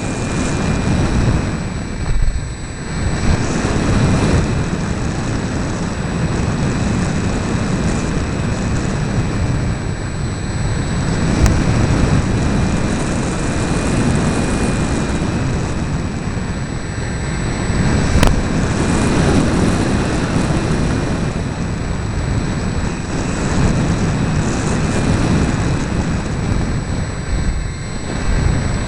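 RC model airplane in flight heard from its onboard camera: heavy wind rush buffeting the microphone over the steady high whine of the propeller motor, the loudness rising and falling every few seconds.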